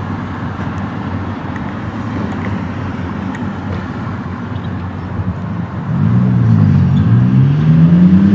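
Road traffic noise, then about six seconds in a car engine grows louder, its pitch rising, dipping and rising again as it drives along the street.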